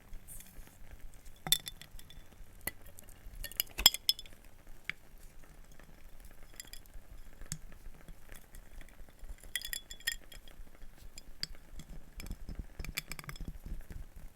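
Small hard wooden objects tapped and clacked together in irregular light clicks, with two sharper knocks and a couple of quick flurries of clicks.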